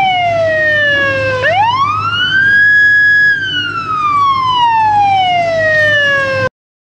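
Police siren wailing: the pitch falls, climbs steeply about a second and a half in, holds high briefly, then slides slowly down before cutting off suddenly near the end.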